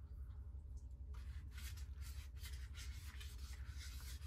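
Wet sandpaper rubbed by hand in repeated strokes over a bass boat's oxidized metal-flake finish, a scratchy hiss starting about a second in, wet sanding to cut away heavy oxidation. A steady low rumble runs underneath.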